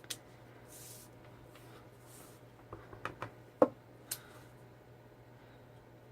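Desk work with stamps and cardstock: soft paper swishes, then a few light taps and clicks, with one sharper knock about three and a half seconds in.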